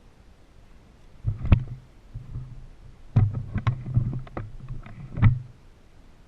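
Irregular sharp knocks and clicks over a low hum, in a short group about a second in and a longer run from about three to five seconds in.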